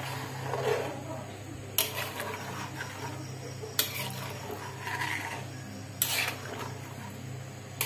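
A metal spoon stirring a watery rice-and-lentil mixture in a metal wok, with a sharp clink of spoon on pan about every two seconds, three times. A steady low hum runs underneath.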